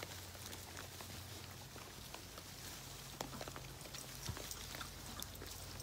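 Faint rustling and scattered small clicks of piglets rooting and walking in wood-chip bedding, over a faint low hum.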